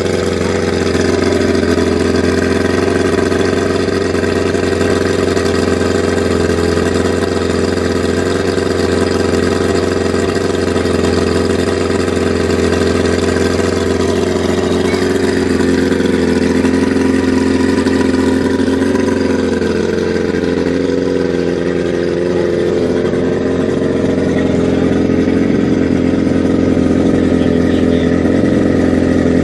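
Mercury 50 hp two-stroke outboard motor running steadily out of the water on its trailer, just started after two years in storage. Its pitch dips briefly and recovers about twenty seconds in.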